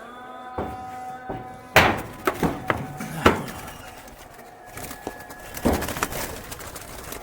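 A freshly trapped dove thrashing and leaping inside a bird trap, knocking against its sides. There are about half a dozen sharp knocks and thumps at uneven intervals, the loudest a little under two seconds in and just after three seconds.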